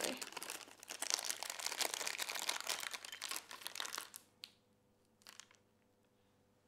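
Packaging crinkling and crackling as it is handled, stopping about four seconds in, followed by a couple of faint clicks.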